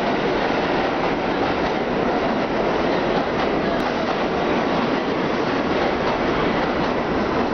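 R46 subway train running along the station platform: a steady rumble of steel wheels on the rails.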